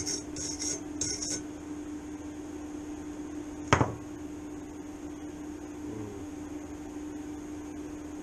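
Steel wire brush scrubbed over a steel plate in quick strokes, about three a second, stopping about a second and a half in. A single sharp knock about halfway through, the loudest sound, over a steady low hum.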